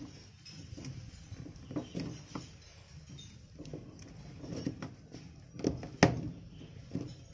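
Plastic drain hose of a top-loading washing machine being handled and pushed onto its outlet: irregular knocks, clicks and rubbing of plastic, with the loudest knock about six seconds in.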